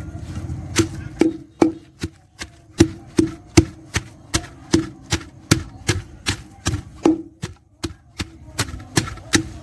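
Pestle pounding garlic and ginger in a mortar: a steady run of sharp thuds, about two and a half a second.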